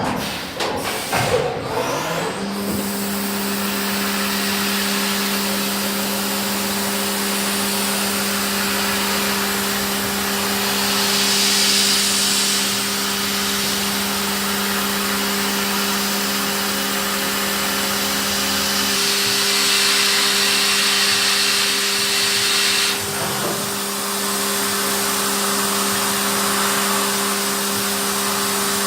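Haas VF-2SS CNC vertical mill running while milling aluminium: a few knocks at first, then a steady hum that comes in about two seconds in, under a hiss that grows louder through the middle and drops back about two-thirds of the way through.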